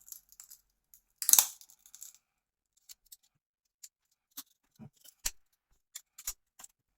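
Glass screen protector cracking and snapping as it is prised off a phone's screen: a loud crackling break about a second in, then scattered small clicks and ticks as more pieces snap away.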